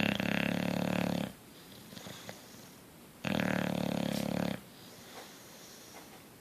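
Bulldog snoring in its sleep: two loud, rattling snores about three seconds apart, each lasting over a second, with quieter breathing between them.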